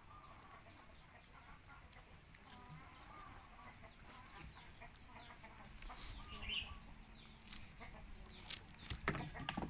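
Faint clucking of chickens in the background, in short wavering calls, with a few soft knocks near the end.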